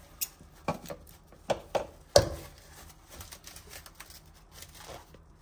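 Plastic cling film crinkling and tearing as it is pulled off the roll and pressed over a mixing bowl. A handful of sharp crackles and clicks come in the first two seconds, the loudest just over two seconds in, then softer rustling.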